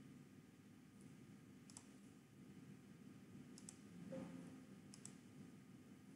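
Faint computer mouse clicks, a few short press-and-release pairs spread out over several seconds, against near-silent room tone.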